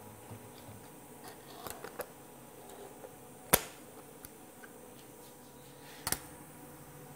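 Hard clicks and knocks of parts being handled on a router table. One sharp, loud click comes about three and a half seconds in, as an insert ring is set into the router plate's opening, and a quick double knock follows near the end as a plastic setup gauge is brought down. Fainter light ticks come before the loud click.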